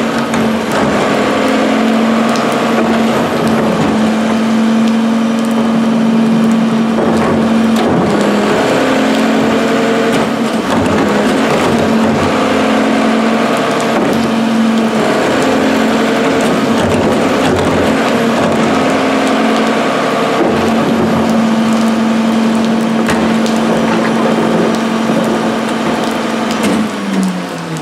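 Rear-loading garbage truck's diesel engine held at raised revs to drive the packer, with crunching and knocking of trash and carts being loaded. The revs drop away near the end.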